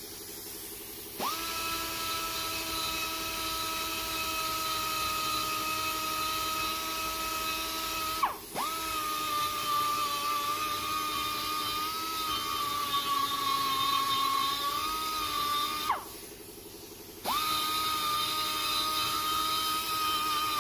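Handheld die grinder whining at high speed as its bit cuts the aluminium exhaust port of a Mazda rotary engine rotor housing. It runs in three stretches: it starts about a second in, stops briefly around eight seconds, and stops again for about a second around sixteen seconds before starting once more. Its pitch sags a little midway through the second stretch as the bit bites into the metal.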